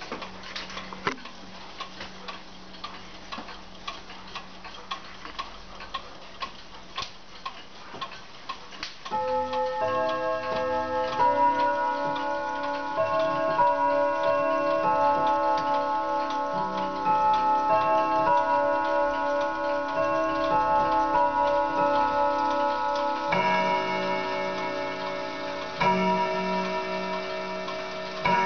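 Several clocks ticking. About nine seconds in, a pendulum wall clock begins its noon chime, a melody of ringing bell-like notes. Near the end it starts striking the hour with deeper single strokes about two and a half seconds apart.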